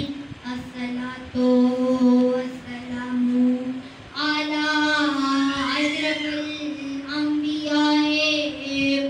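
A boy chanting a Muharram lament (noha) into a handheld microphone, in long held notes, with a brief pause for breath about four seconds in.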